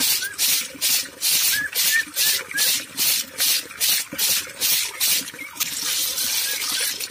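Snail shells grating against each other inside a woven plastic bag that is rubbed back and forth by hand to scrub them clean: rhythmic rasping strokes, about two and a half a second, that merge into a steadier rustle near the end.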